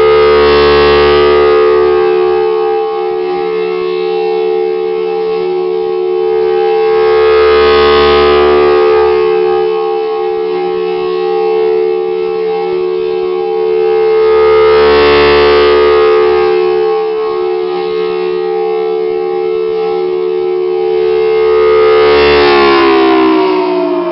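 Federal Signal Thunderbolt 1003 outdoor warning siren sounding a steady tone while its horn rotates, so the sound swells and fades about every seven seconds. Near the end the pitch begins to fall as the siren winds down.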